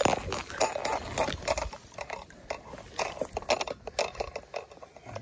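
Close handling noise: irregular clicks and crackles, densest in the first couple of seconds and sparser after, as hands work a tangled fly line.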